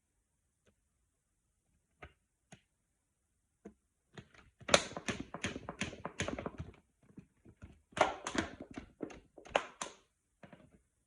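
Bottle of slime mixture being shaken: a few scattered knocks, then two bursts of rapid, rhythmic thunks at about three a second.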